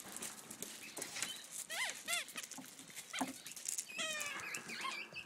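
Seven-week-old German Shepherd puppies giving a few short, high yips and whines as they play, with a longer whining call about four seconds in. Paws scuffle on gravel throughout.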